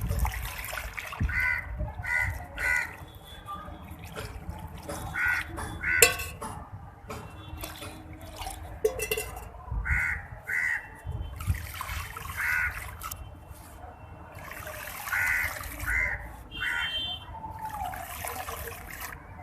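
Wet charcoal-and-sand-cement mixture being poured, trickling and splattering, with one sharp knock about six seconds in. Crows caw repeatedly in short calls.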